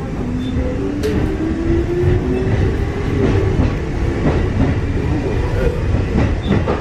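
Kotoden 1300 series electric train (ex-Keikyu 1000 series), heard from inside the car as it pulls away. The traction motors whine, rising in pitch over the first few seconds, over a steady rumble and the clatter of wheels over rail joints.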